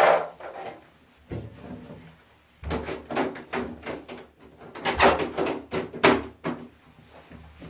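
Parts of a wall-mounted air conditioner being handled during disassembly or cleaning: a run of short knocks and clacks, busiest from about three seconds in.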